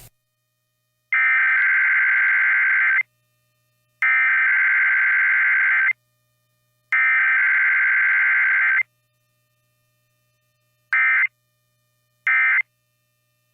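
Emergency Alert System SAME data bursts, the harsh, buzzy digital tones of a Required Weekly Test: three long header bursts about a second apart, then two short end-of-message bursts near the end.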